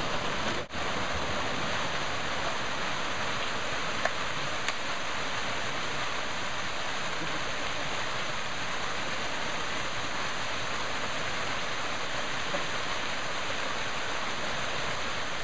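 Waterfall rushing steadily, a dense even roar of falling water that drops out for an instant just under a second in.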